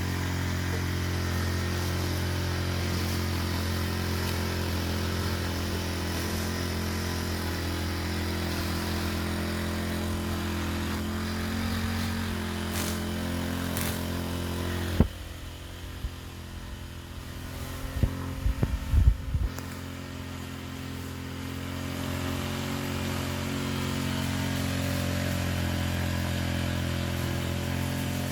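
Brushcutter engine running steadily at an even pitch, quieter for several seconds about halfway through before picking up again. A sharp knock comes just before the quieter stretch, and a few dull thumps follow a few seconds later.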